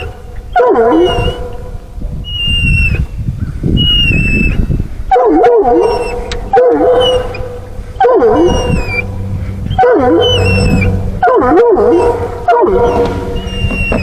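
Coonhound baying: a run of about seven loud, drawn-out bawls, one every second or two, each swooping down and back up in pitch.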